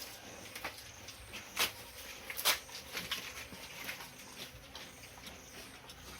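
Pigs in their pen making scattered clicks and rustles, with two louder knocks about a second and a half and two and a half seconds in.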